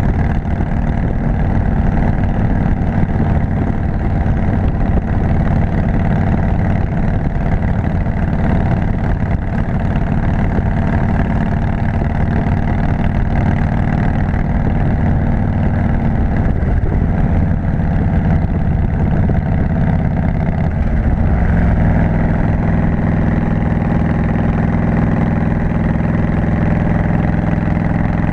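Harley-Davidson V-twin motorcycle engine running steadily under way while climbing a mountain road, heard from a camera mounted on the bike; its note changes about three quarters of the way in.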